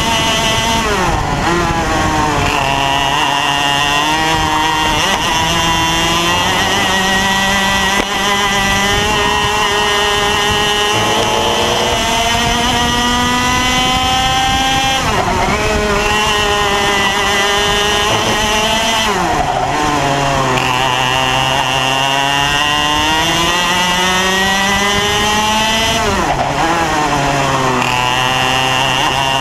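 IAME X30 Junior 125cc two-stroke kart engine running at full throttle, its pitch climbing slowly along the straights and dropping sharply under braking into the corners, about four times.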